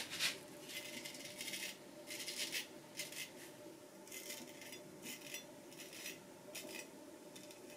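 Vintage Nashville Barber Supply Kaeser's No 402 straight razor, well honed, scraping through lathered stubble on the neck in a string of short, irregular strokes, each a brief rasp.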